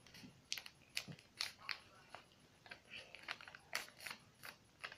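A sheet of paper being folded and creased by hand: faint, irregular crackles and crinkles, a few each second.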